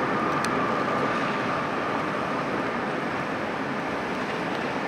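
Tatra T3SUCS tram approaching over the rails amid steady street noise. A thin high whine is held through the first two seconds and then fades.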